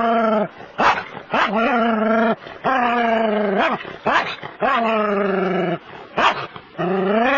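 Small terrier whining and barking in long, wavering cries, with a few short sharp yips in between: a dog worked up while confronting a snake.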